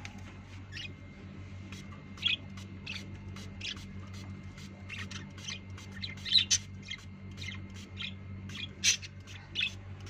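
Pet parakeets giving many short, sharp squawks at an irregular pace, a few much louder than the rest, over a steady low hum.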